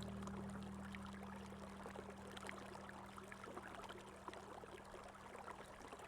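Running water trickling and splashing, a steady hiss with many small drips and plops, under a fading low held note from background music.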